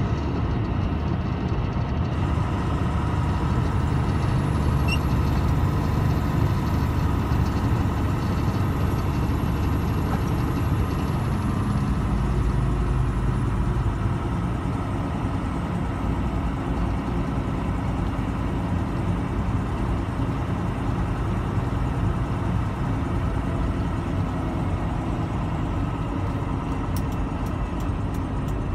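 Steady engine and road noise inside the cab of a vehicle driving along a two-lane road, with a faint high whine that rises and falls.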